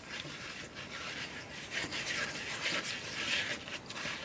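A brush scrubbing and scraping around the inside of a paint bucket, washing it out with turpentine oil: irregular rubbing and scraping strokes.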